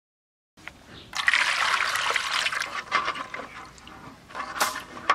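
Water splashing and trickling as a hand rubs and washes eggs in a shallow steel plate, with light clicks of eggs knocking against the metal. The water is loudest in the first couple of seconds and quieter after.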